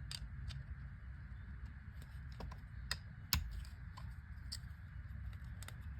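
Scattered light clicks and taps of small metal carburetor parts and screws being handled during disassembly of a Tillotson chainsaw carburetor, about eight in all, the sharpest a little past the middle, over a low steady hum.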